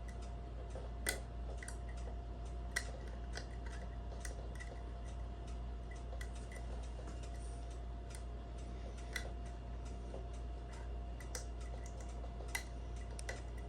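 Homemade lever pick and tensioner working inside a five-lever mortise lock as it is picked: scattered, irregular small metallic clicks and ticks. A steady low hum runs underneath.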